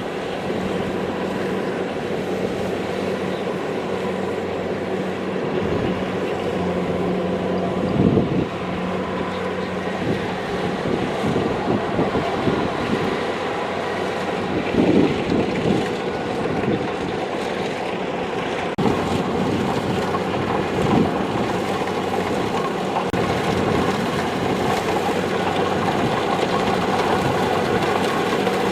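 Kubota DC-70 Plus combine harvester's diesel engine and threshing machinery running steadily, with a constant hum and a few brief louder surges.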